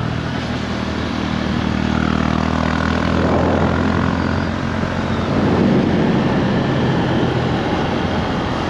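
Honda CB150 motorbike engine running steadily at cruising speed, with wind rushing over the microphone as the bike rides along.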